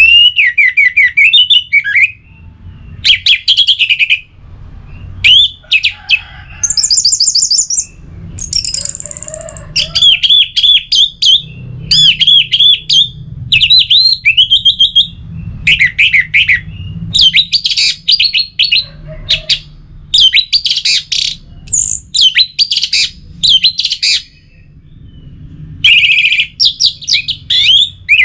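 Orange-headed thrush singing: loud phrases of rapid, varied whistled notes and trills in quick succession, broken by short pauses, with a faint low hum beneath.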